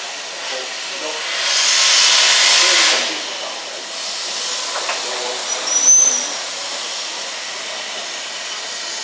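Steam locomotive letting off steam: a loud rush of hiss about one and a half seconds in, easing after about three seconds to a steadier, quieter hiss. A brief high-pitched squeal about six seconds in.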